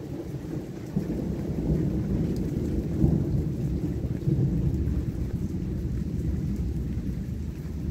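Thunder rumbling during a heavy thunderstorm, a low, rolling rumble that swells about a second in and keeps going.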